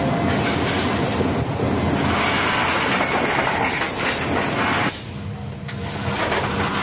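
Loud, steady running noise of a C-17 Globemaster III, heard from inside its cargo hold. It drops abruptly about five seconds in, leaving a lower hum with a steady tone.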